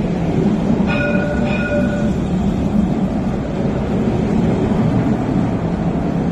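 A tram running along the platform, a steady low rumble. About a second in, a brief tone sounds twice.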